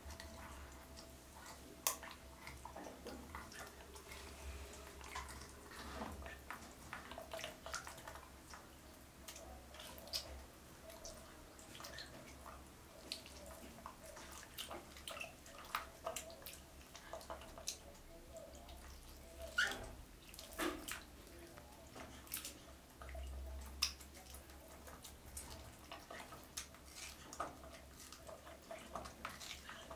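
Faint water sounds in a plastic tub: small drips and splashes, with irregular soft wet clicks, as a baby monkey sits in the water eating a mango.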